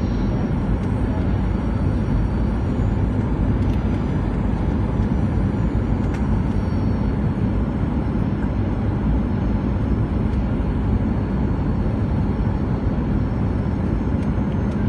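Airliner cabin noise on approach to land: a steady low rumble of engines and rushing air that does not change in level.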